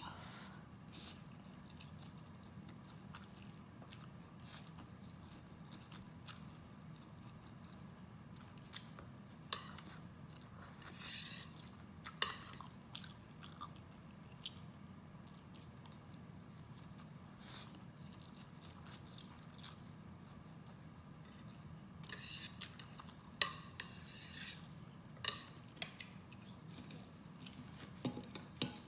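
Close-up eating sounds of a person eating vermicelli noodles: quiet chewing and slurping, with scattered sharp clicks.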